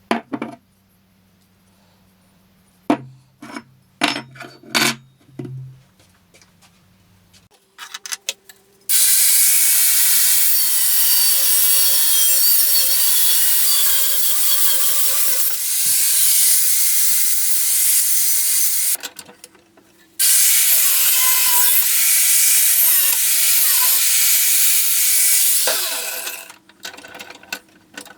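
Homemade belt grinder grinding a workpiece in two long passes, about ten seconds and then six seconds, its running tone sagging now and then under pressure. Before it, a low hum and a few sharp clicks and knocks.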